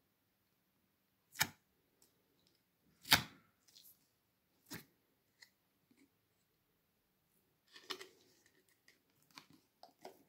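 Clear plastic cup and bottle being handled while slime is pushed from one into the other: three sharp plastic clicks, the loudest about three seconds in, then soft crackling and squishing near the end.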